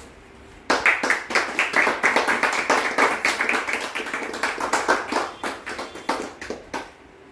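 A small group of people clapping, starting suddenly about a second in and thinning to a few last claps near the end.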